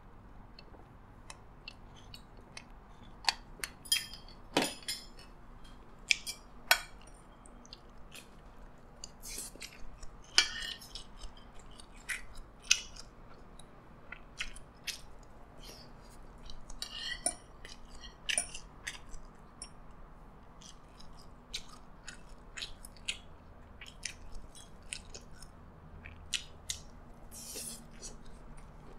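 Close-miked eating of fried rice: chewing and mouth sounds, with a metal spoon and fork clicking and scraping on ceramic plates in many short, scattered clinks.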